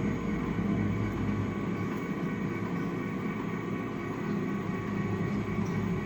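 Metal planer's table drive running steadily as the table is jogged along under power: a continuous machine hum with a rumble underneath.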